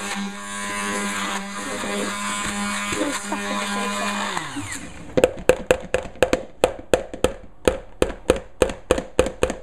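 Electric kitchen blender running steadily, then switched off and spinning down about four and a half seconds in. After it stops comes a regular run of sharp knocks, about three a second.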